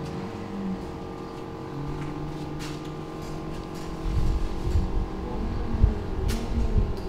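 A steady engine hum holding one pitch, with a rougher low rumble joining in about four seconds in.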